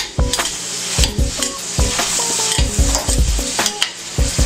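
Sliced mushrooms and onions sizzling as they sauté in hot vegetable oil in a frying pan. Through the sizzle, a utensil scrapes and knocks against the pan again and again as they are stirred.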